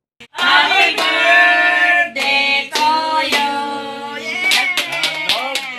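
A group of people singing a birthday song together, with hand claps. It starts abruptly a moment in, with long held notes.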